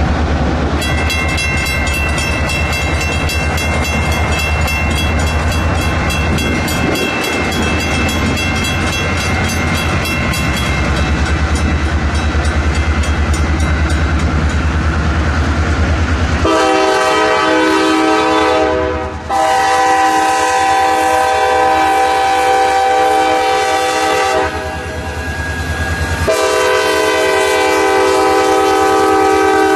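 A diesel locomotive train rumbles past with a fast, even clicking, then a multi-chime locomotive air horn sounds in long, loud blasts for the second half, breaking off briefly twice.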